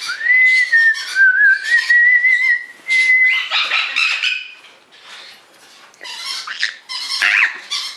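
Pet parrots calling: a long whistle held for about three seconds at the start, with a slight warble, then repeated harsh squawks and chatter.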